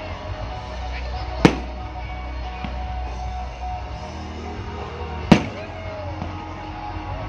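Two aerial firework shells bursting, each a single sharp bang, about a second and a half in and again about five seconds in, over music playing in the background.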